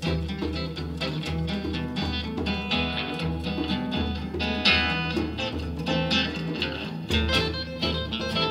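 Guitar music: plucked strings over a steady, repeating bass line.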